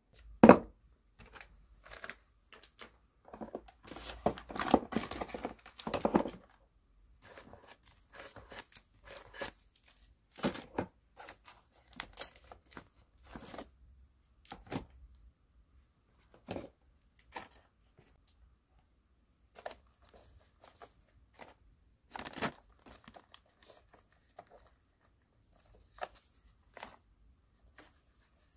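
Hands picking plastic-sleeved memo pads and paper note cards out of plastic shelf baskets and into a clear plastic tub: irregular rustling and crinkling of paper and plastic with short sharp taps and clicks, busiest about five seconds in.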